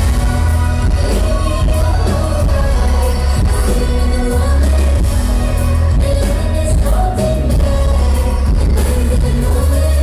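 Live electronic pop music played loud through a concert PA: a woman sings a wavering melody over a deep, steady bass.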